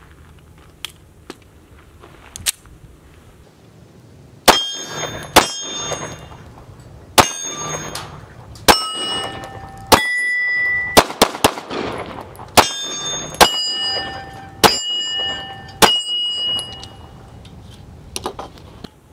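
Canik TP9SC Elite 9mm pistol firing reloads primed with small rifle primers: about fifteen shots at an uneven pace, starting about four and a half seconds in. Every round fires. Hits on the hanging steel targets ring out at different pitches, and a few light handling clicks come before the first shot.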